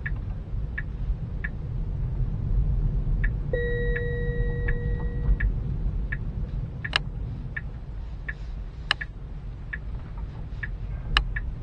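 Tesla turn-signal indicator ticking evenly, about three ticks every two seconds, over low cabin road rumble as the car makes a turn. A steady electronic tone sounds for about two seconds near the middle.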